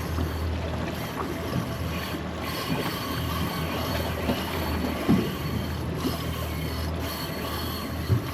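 Steady low hum with wind and water noise aboard a fishing boat at sea, with a short knock about five seconds in and another near the end.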